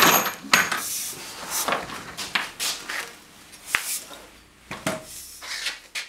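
Steel-tube robot frame being handled: a run of irregular metallic clanks and knocks with rattling between them, the loudest right at the start.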